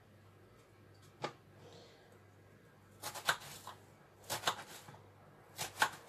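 Knife cutting an onion on a cutting board: one sharp knock about a second in, then three short clusters of quick cutting strokes later on.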